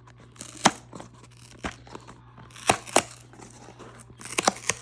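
Cardboard ammunition box being torn open along its perforated tab by hand: a series of sharp tearing snaps and crackles, a few spaced out and then a quick cluster near the end.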